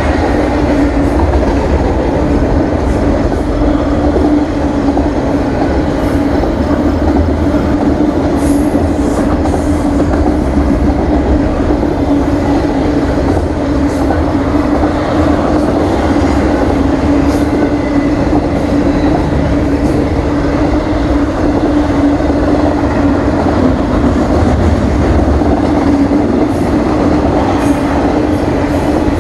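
Double-stack container train's well cars rolling past: a continuous rumble of steel wheels on rail with a steady droning hum.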